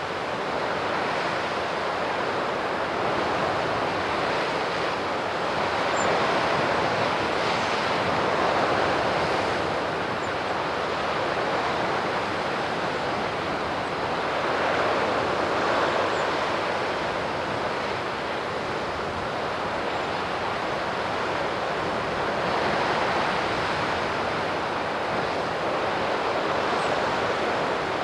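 Sea surf: waves breaking and washing ashore in a continuous rush that swells and eases about every seven or eight seconds.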